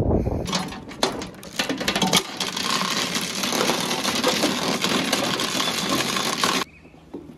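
Anchor chain rattling out over the boat's metal bow roller as the anchor is let go: a dense, loud metallic clatter that stops suddenly near the end.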